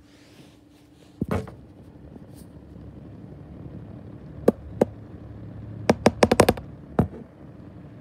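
Schallen 12-inch desk fan with worn bearings: a low hum, a thump about a second in, then the motor noise builds slowly. Over it come sharp knocks, two single ones, then a quick run of about six, then one more.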